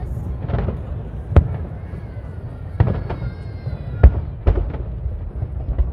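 Aerial fireworks shells bursting in a continuous barrage: about six sharp booms over a steady low rumble, the loudest about a second and a half in and about four seconds in.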